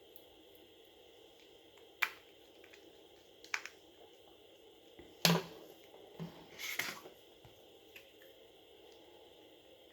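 A smartphone being handled during reassembly: a few light clicks and taps, with two short scraping rustles about five and seven seconds in, the loudest sounds here.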